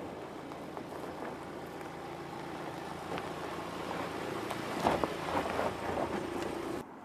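Mercedes GLC SUV driving slowly over a rough dirt track, with a steady drivetrain hum and tyres crunching on dirt and stones. The crunching grows loudest as it passes close by about five seconds in, then the sound cuts off abruptly.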